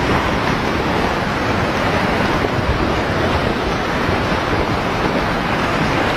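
Steady, loud rumble of a large landslide: masses of rock and soil pouring down a mountainside.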